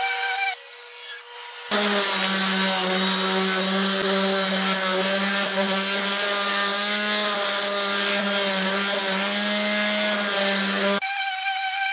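DeWalt random orbital sander running on the face of a purpleheart board: a steady motor hum with sanding hiss that starts about two seconds in and cuts off suddenly near the end.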